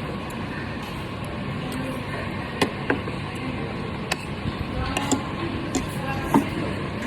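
Steady background hum of a busy eating place with faint, indistinct voices, broken by a handful of sharp clinks of cutlery against plates and bowls.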